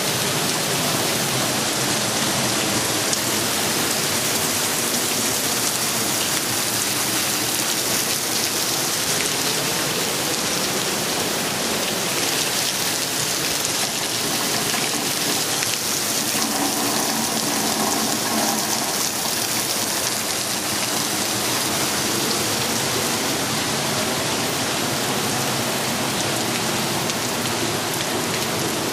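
Storm rain falling steadily, an even hiss with no let-up.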